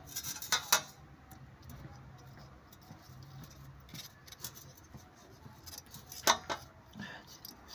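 Light metallic clicks and scratching as a thin wire is worked into a clogged air port on an Opel Vectra C throttle body to clear out soot. Two sharp clicks come just under a second in, and another pair about six seconds in.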